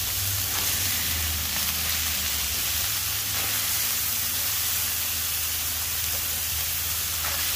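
Ground-beef burger patties and sautéing onion, jalapeño and garlic sizzling steadily on a hot gas flat-top griddle, over a low steady hum.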